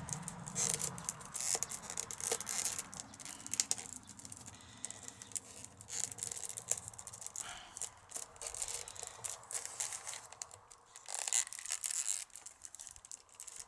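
Irregular rustling, scraping and small clicks of a thin bird-cherry wood strip being wound around a basket and tucked in.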